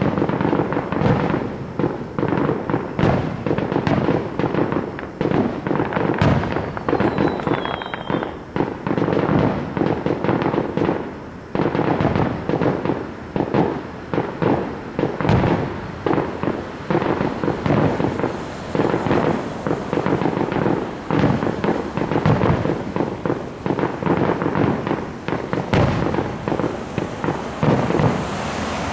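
Aerial fireworks shells bursting in rapid succession, a dense, unbroken run of sharp bangs and crackles.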